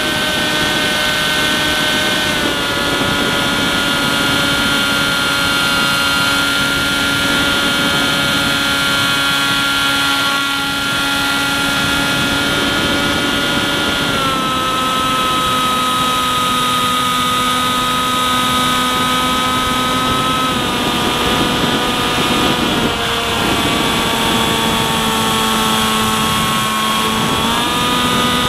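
Small electric motor and propeller of an EPP foam FPV plane running in flight, heard close up from on board over a steady rush of air. The whine steps down in pitch a few times as the throttle is eased and rises again near the end.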